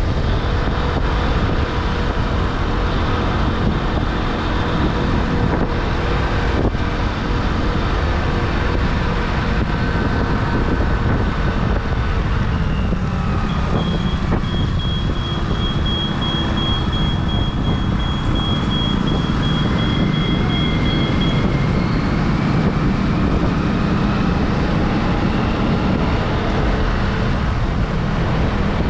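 Riding a small commuter motorcycle through city traffic: steady wind rush on the camera microphone over the engine and tyre noise. A thin high whine holds for several seconds in the middle.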